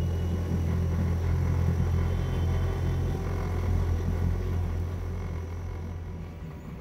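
Houseboat's outboard motor running with a steady low hum, fading toward the end.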